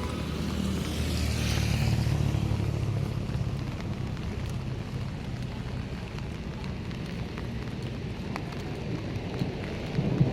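Street traffic on a wet road in the rain: a vehicle passes about one to three seconds in, its hiss and rumble swelling and fading over steady traffic noise.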